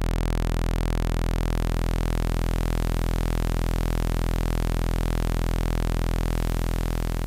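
Low-pitched sawtooth wave from a Eurorack modular synthesizer holding one steady note, with white noise mixed in underneath at a low level, adding a hiss and grit over the buzz.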